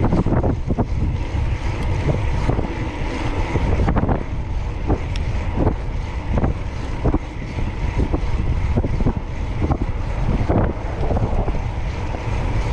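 Heavy wind buffeting the microphone while riding a fixed-gear bicycle at speed, a steady low rumble broken by frequent small knocks and rattles.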